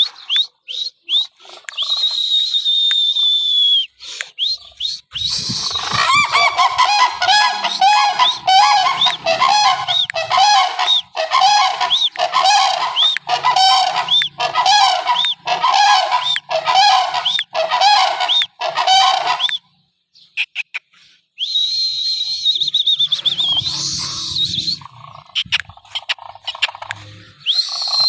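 Sarus cranes calling: a long run of loud, evenly repeated trumpeting calls, about one and a half a second, through the middle. A steady high whistle-like tone is heard before and after the run.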